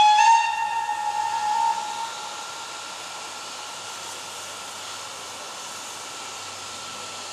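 Steam locomotive whistle of BR Standard Class 4 2-6-4 tank No. 80080: one loud blast of about two seconds that steps up slightly in pitch just after it starts. It gives way to a steady hiss of escaping steam.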